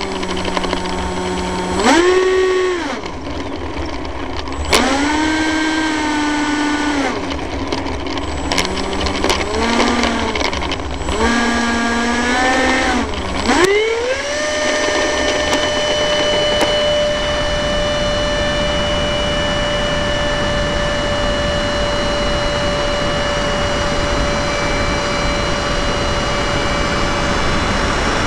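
Whine of an R/C model F-16's motor and fan, heard close up from the plane's on-board camera. It is throttled up and down several times in short rises and falls, then at about fourteen seconds it climbs to one steady high pitch and holds at full throttle through the takeoff run and climb.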